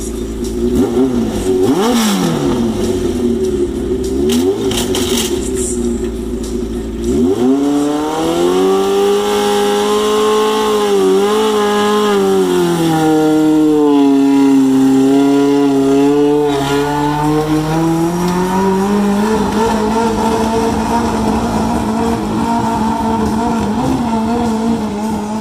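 Motorcycle-engined mini modified pulling tractor, revving in short blips at first. About seven seconds in it rises sharply in pitch and runs hard, the pitch dipping through the middle before it settles to a steady note near the end.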